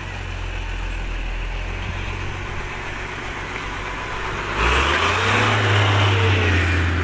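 Mitsubishi Fuso tow truck's diesel engine idling steadily, then stepping up to a higher, louder engine speed about four and a half seconds in, with a rushing noise over it.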